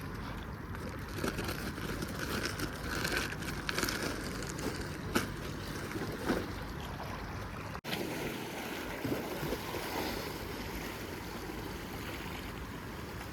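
Wind buffeting the microphone over lapping water, a steady rumbling hiss, with two brief knocks about five and six seconds in.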